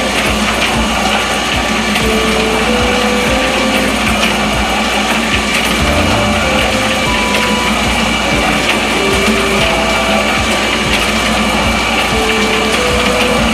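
Homemade rotating-drum mixer running steadily, its drum spinning fast, with a melody of background music faintly under it.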